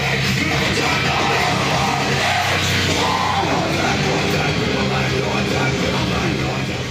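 Loud rock music at a steady level, cutting off abruptly at the end.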